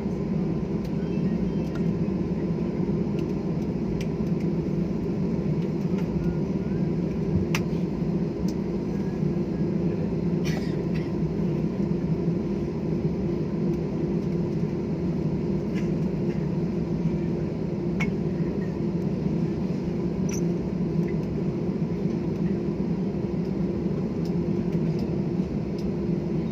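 Steady airliner cabin hum after landing, a constant low drone with a faint whine, broken only by a few faint clicks.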